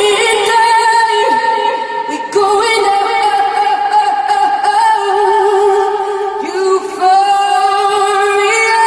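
A woman singing long, held notes with vibrato, with little low end beneath; the voice briefly drops away about two seconds in and again about seven seconds in.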